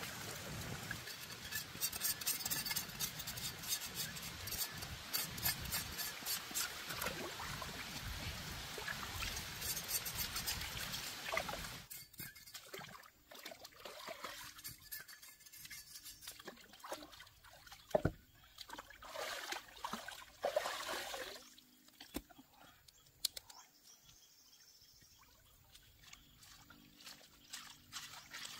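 Hands washing food in shallow stream water: busy splashing and trickling for about the first twelve seconds, then softer, scattered splashes and drips, with one sharp tap about halfway through.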